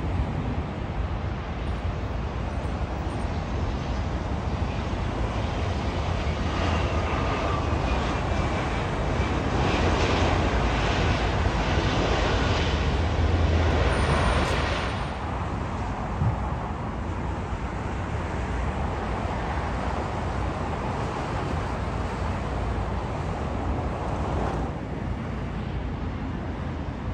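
Jet noise from a Spirit Airlines Airbus A320-family airliner landing and rolling out on the runway. It grows louder for several seconds, peaks, then drops off sharply. Near the end a second landing jet's noise rises more softly.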